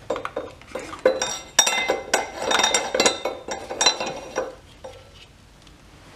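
Steel rear sprocket clinking and scraping against the ATV's rear hub as it is worked back onto the axle: a run of sharp metallic clinks with a short ring, stopping about four and a half seconds in.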